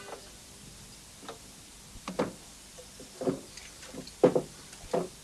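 Loose wooden jetty planks knocking and thudding as they are lifted, shifted and set down on the jetty's wooden deck: a handful of irregular knocks, the loudest about four seconds in.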